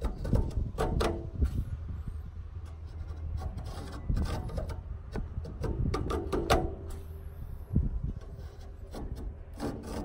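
Fin comb dragged through the bent aluminium condenser coil fins of a Coleman Mach RV rooftop air conditioner, a rough rasping scrape in irregular strokes as the teeth comb out hail dents.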